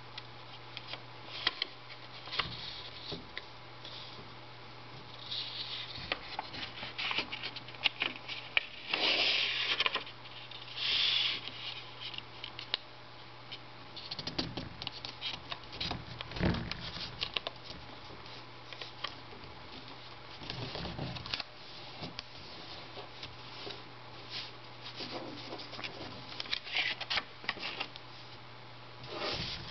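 A sheet of origami paper being folded by hand: irregular crisp crackles and rustles as it is handled and turned, with two louder rubbing hisses about nine and eleven seconds in as the creases are pressed down.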